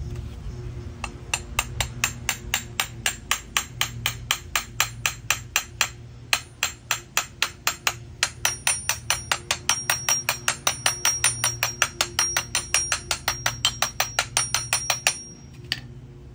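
Rapid light taps of a small ball-peen hammer on an AC compressor clutch pulley, driving the pulley onto the compressor nose. The taps come at about four a second with a couple of short pauses. From about halfway on, each tap rings with a high metallic tone.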